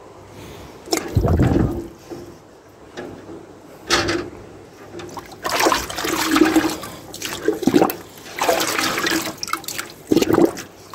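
A new crucible being dunked and swirled in a bucket of runny calcium carbonate slurry: liquid sloshing and splashing in repeated bursts, the first about a second in, as the crucible is soaked so the coating gets into its cracks.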